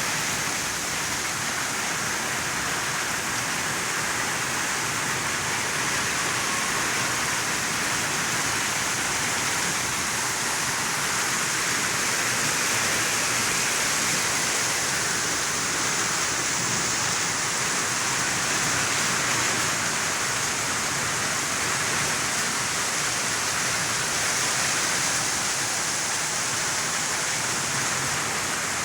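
Heavy rain pouring down in a steady, even hiss, without a break.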